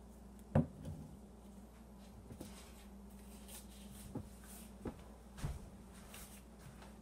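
A liquid-filled glass mason jar set down upside down on its metal lid on a plastic cutting board: one sharp knock about half a second in, then a few fainter knocks and taps. A steady low hum runs underneath.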